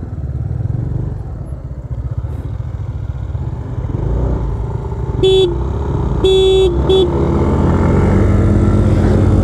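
Yamaha Aerox 155 scooter's single-cylinder engine running, with a horn tooted three short times a little past halfway. Near the end the engine note rises and gets louder as the scooter accelerates.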